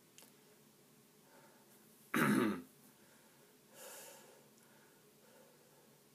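A man clears his throat once, sharply and briefly, about two seconds in, then breathes out audibly a little before four seconds; otherwise quiet room tone.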